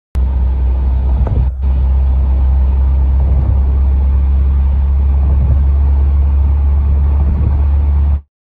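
Steady low rumble of road and wind noise from a car driving along a motorway, heard from inside the moving car. It starts and cuts off abruptly, with a brief dip about a second and a half in.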